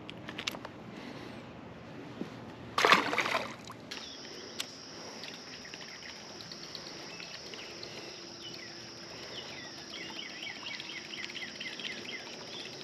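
Outdoor pond-side ambience: a brief rushing noise about three seconds in, then a steady high thin whine, with a bird singing a fast run of short downward chirps near the end.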